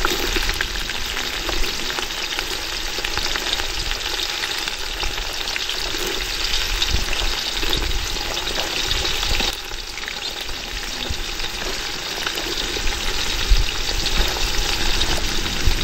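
Sliced shallots frying in hot oil in an aluminium pot: a steady sizzle full of fine crackles. The sizzle drops for a moment about ten seconds in, then picks up again.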